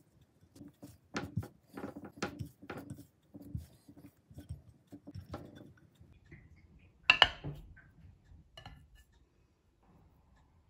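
Hands kneading and pressing sticky glutinous rice dough in a glass pie dish, with a run of irregular taps and knocks against the glass. About seven seconds in there is one sharp, louder clink of glass or a utensil.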